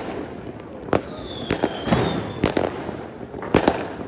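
Fireworks going off: an irregular series of sharp bangs from bursting shells over continuous crackle and rumble, with a thin high whistle about a second in.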